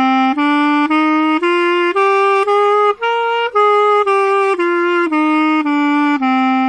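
B-flat clarinet playing a one-octave scale in its low register: the Mixolydian mode of F major, written C up to C and back down. Evenly paced, joined notes of about half a second each climb step by step to the top C about three seconds in, then descend, the last low note held.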